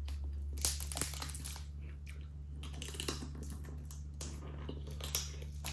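Close-miked chewing of a mouthful of crab meat, with wet mouth sounds and scattered small crunches and clicks.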